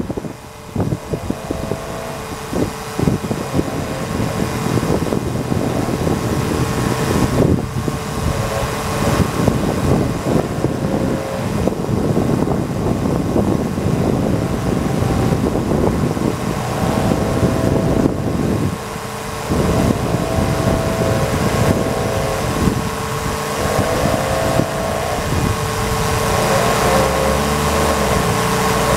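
Electric fluid-extraction pump running, drawing CVT fluid out of the transmission through a hose: a steady whine with an uneven, rough rattle underneath.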